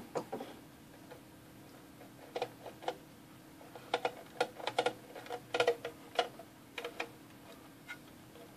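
Scattered light clicks and knocks as a circuit board is worked loose and lifted inside a metal instrument chassis, the board and its hardware tapping against the case. The clicks come in small clusters, busiest a few seconds in.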